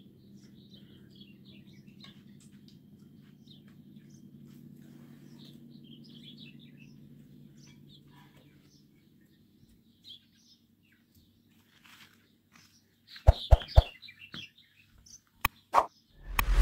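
Faint bird chirping over a low steady hum, fading out about eight seconds in. Near the end come several sharp, loud clicks.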